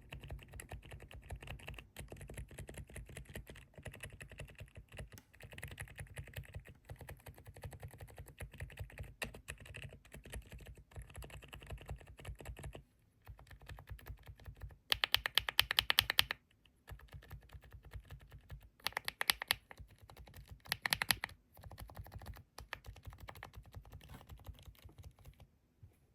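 Rapid typing on a Rainy 75 mechanical keyboard: a dense run of muted key clicks with a soft low thud, broken by short pauses, with a few louder, sharper bursts of fast keystrokes, the first about fifteen seconds in.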